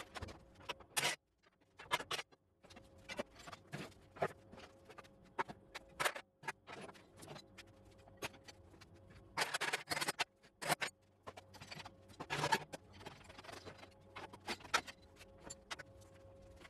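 Irregular clicks and knocks, with a couple of denser bursts of rattling, from work on the hydrostatic transmission of a 1977 Sears Suburban 18 garden tractor as it is being removed, over a faint steady hum.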